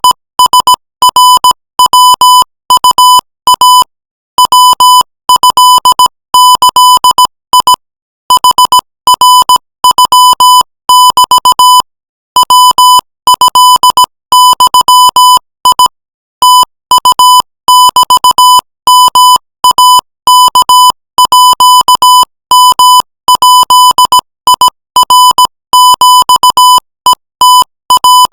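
Morse code sent at 20 words per minute: a single steady beep near 1 kHz keyed on and off in dots and dashes, with longer pauses between words.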